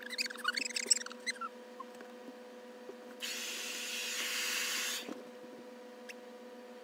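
A few short high squeaks in the first second or so, then a steady hiss that starts about three seconds in, lasts about two seconds and stops suddenly.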